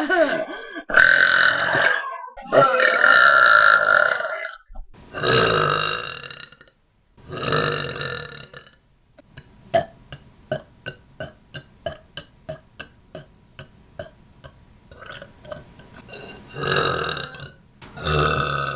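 Young women belching loudly: several long, drawn-out burps one after another. A quick run of short, sharp pulses follows, about three a second, then two more long burps near the end.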